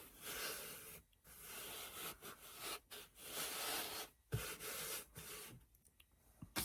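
Soft brushing and rubbing strokes over fabric as it is glued onto a box with Mod Podge, in several long passes with short pauses between them.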